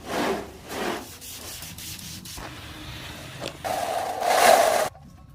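Handwork rubbing and scraping: a few strokes about two a second, then steady scraping, then a louder stretch with a steady hum that cuts off suddenly near the end.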